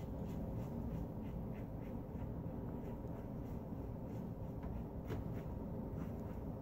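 Parker 24C open-comb double-edge safety razor scraping through lathered neck stubble: a quick series of short, scratchy rasps, several a second, over a steady low background hum.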